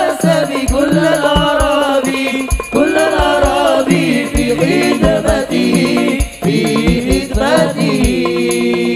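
A male voice sings a drawn-out, ornamented sholawat melody while hand drums beat a steady rhythm underneath. Near the end the voice settles onto one long held note.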